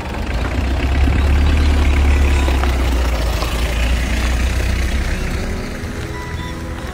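A vehicle's engine rumbling close by, swelling about a second in and easing off after about five seconds, with faint music underneath.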